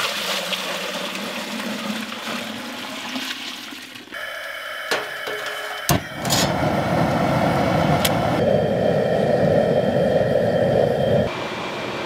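Running, splashing water, then a louder steady rushing noise after a sharp click about six seconds in; the sound changes abruptly several times.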